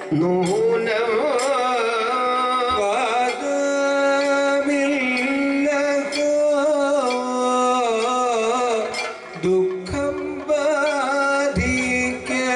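Kathakali singing: a male singer holds long sung notes that waver in pitch, over regular metallic strikes of a small hand-held gong (chengila).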